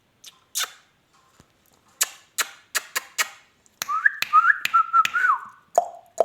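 Ringneck parakeet making a string of sharp clicks, then a warbling whistle that glides up and down, ending in a few shorter, lower whistled notes.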